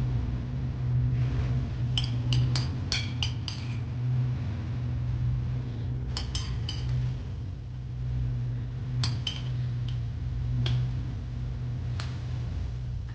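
Kitchenware clinking: light ringing clinks of utensils against dishes, in a quick run of several about two seconds in, a few more around six seconds and nine seconds, and single clinks later, over a steady low hum.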